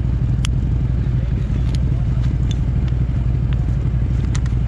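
Off-road vehicle engine running steadily at an unchanging speed, with a few short sharp clicks over it.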